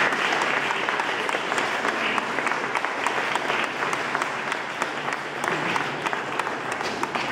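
Audience applauding, dense clapping that slowly tapers off toward the end.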